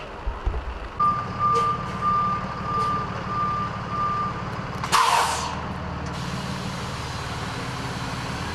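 A heavy truck's reversing alarm beeps about twice a second over its diesel engine. About five seconds in there is a sharp hiss of air brakes, after which the engine keeps running.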